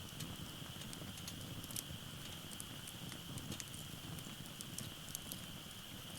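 Firewood burning in an open fire pit: irregular crackles and small sharp pops over a low, steady rumble of the fire, with a steady high-pitched tone behind it.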